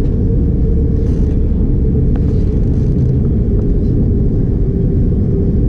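Steady low rumble inside the cabin of an Airbus A330 airliner taxiing after landing.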